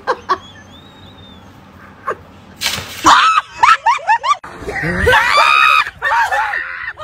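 Shrill screaming. About two and a half seconds in there is a loud burst of noise, then a quick run of short rising-and-falling cries, then a long held scream near the end.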